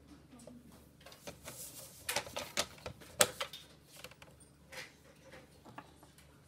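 Faint pencil lead scratching on paper along a plastic set square, mixed with light clicks and taps as the set square is slid and set down on the drawing board; the sharpest tap comes about three seconds in.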